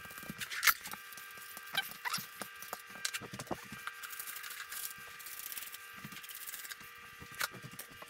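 Hands working a bee pollen patty between sheets of waxed paper: scattered crinkles, taps and clicks at irregular intervals. A faint steady hum runs underneath.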